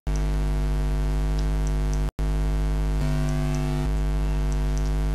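Steady electrical mains hum with a buzzy stack of overtones, from the recording chain. It cuts out completely for an instant twice: right at the start and about two seconds in.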